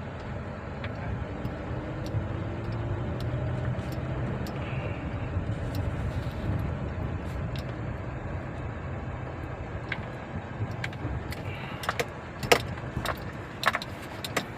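A car on the move, with a steady low engine and road hum. Near the end there are several sharp clicks and knocks. The car has a misfire on cylinder 1.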